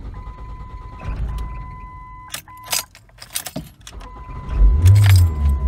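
Car keys jangling and clicking in the ignition over a steady electronic warning tone from the dashboard. About four and a half seconds in, the engine cranks and fires, a cold start after the car has sat unused for two days.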